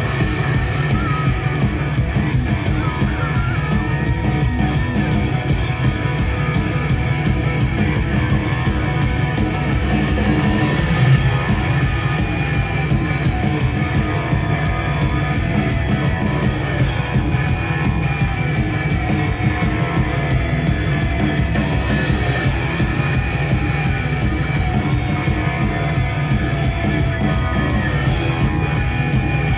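A rock band playing live through a concert PA, with drums, bass and electric guitars and a wavering lead melody line on top, heard from among the audience.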